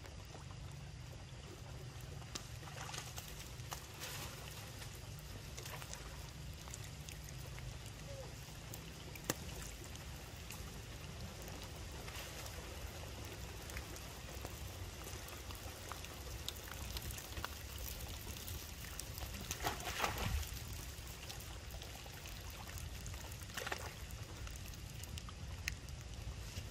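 Steady trickling and running water from shallow rain floodwater, broken by a few short splashes; the loudest, about three-quarters of the way through, lasts about a second.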